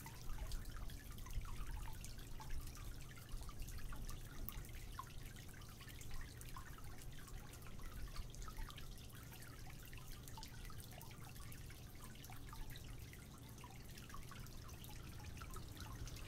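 Faint water lapping and splashing, with many small drip-like ticks scattered irregularly over a steady low hum.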